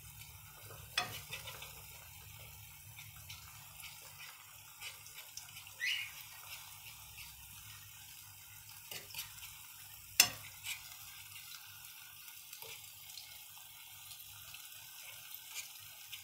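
Beaten eggs frying in hot oil in a nonstick pan with a soft sizzle, as a utensil stirs them and scrapes and clicks against the pan now and then. The loudest click comes about ten seconds in.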